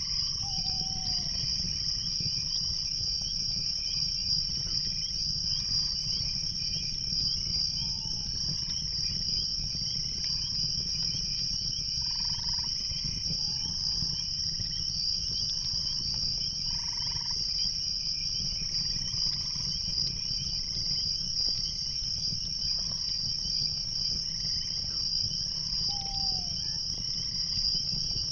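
Night chorus of crickets: a steady high trill that does not let up, with a short higher chirp every two to three seconds. Scattered short calls sound lower down, over a steady low rush.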